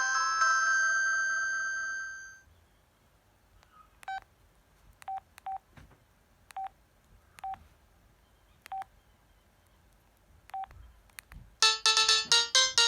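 Samsung SCH-N356 mobile phone ringtones. A chiming ringtone rings on and fades out over the first two seconds, then a string of short single-pitch key beeps sounds as the phone's menu is stepped through, and near the end the next ringtone starts, a loud, fast melody.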